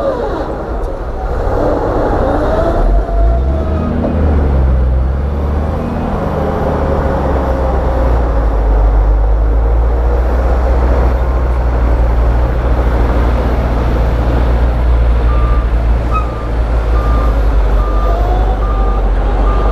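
Heavy diesel construction machinery running loud and steady, with a few rising-and-falling squeals. Over the last few seconds a reversing alarm beeps about once a second.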